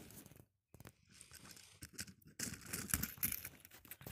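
Close rustling and scraping with small clicks, from a hand handling toy Thomas trains right against the phone's microphone; it grows louder about two and a half seconds in.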